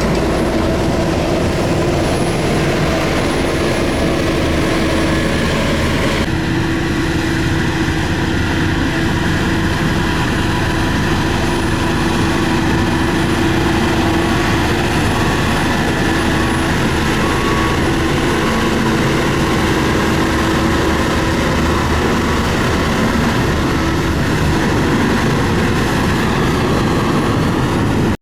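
LiuGong motor grader's diesel engine running steadily under load. The sound shifts abruptly about six seconds in, then carries on evenly.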